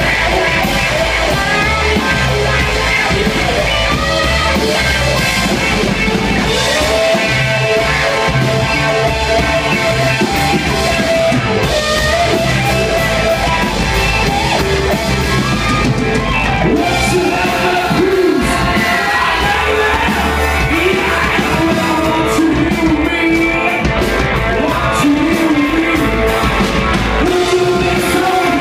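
Live rock band playing: electric guitars and drum kit, with a singer's voice over the band in the latter part.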